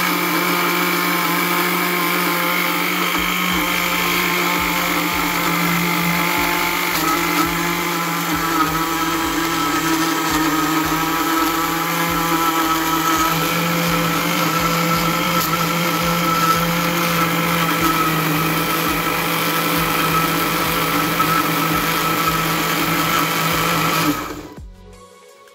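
Electric mixer grinder running steadily, grinding fresh coriander, mint and green chillies into a wet chutney paste. The motor is switched off near the end and the sound dies away.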